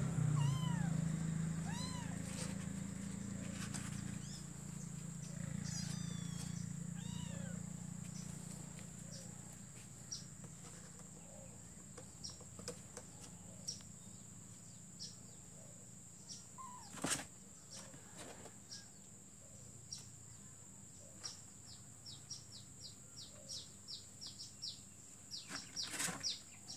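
Small kittens mewing a few short times, mostly in the first several seconds, over a low motor hum that fades away. Later come scattered light clicks and scratches as the kittens move about in the cardboard box.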